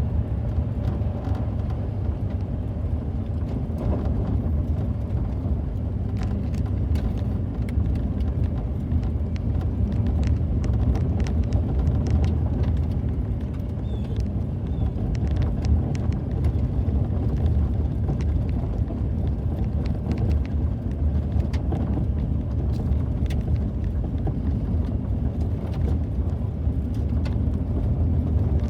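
Steady road and engine noise heard from inside a moving car, a continuous low rumble with scattered small clicks and ticks.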